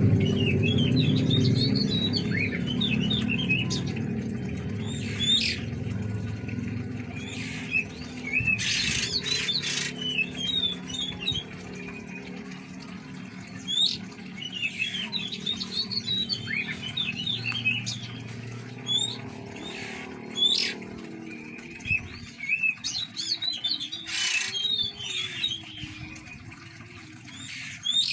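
Oriental magpie-robins (kacer) calling, with clusters of quick high chirps and twitters every few seconds mixed with short harsh squawks.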